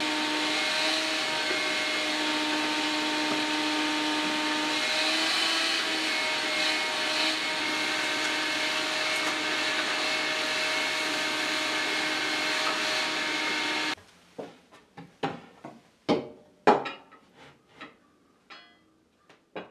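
Wet/dry shop vacuum running steadily with its hose down in a wooden boat's bilge, a hum with a steady pitch that cuts off suddenly about two-thirds of the way through. After it, a handful of separate knocks and clatters of wood being handled.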